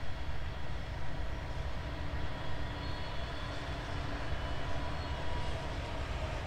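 Class 66 diesel-electric freight locomotive, with its two-stroke V12 engine, running in the distance as it approaches hauling coal wagons. It makes a steady low rumble, with faint steady whines above it.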